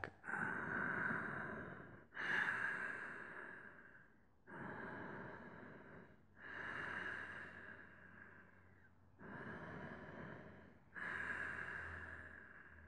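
A man's slow, deep, audible breathing, deliberate yoga breaths: about three full inhale-exhale cycles, each breath lasting about two seconds, with short pauses between.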